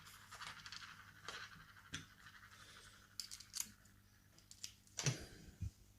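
Quiet clicks and light scraping of a hex bit and driver being handled and turned while dismantling a lock cylinder. A faint fine rasp runs through the first three seconds, with scattered light clicks and a sharper click about five seconds in.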